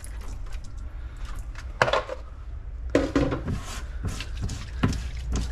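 A few sharp knocks and clinks of metal bike parts and tools being handled on a workbench, spaced a second or so apart, over a steady low hum.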